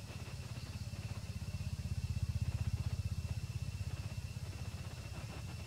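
An engine running with a rapid low pulse, swelling about two seconds in and easing off toward the end, over a steady high-pitched tone.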